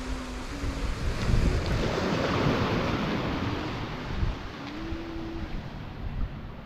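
Ocean surf washing on the beach, with wind buffeting the microphone; the rush of a wave swells about a second in and eases off.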